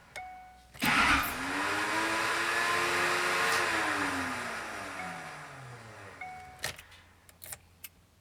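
Duramax LLY 6.6-litre V8 turbodiesel engine revving up about a second in, holding, then winding back down over several seconds. Three or four sharp clicks follow near the end.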